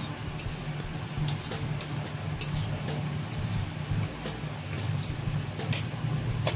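Metal fork clinking and scraping lightly on a ceramic plate: a scattering of small, sharp ticks over a steady low hum.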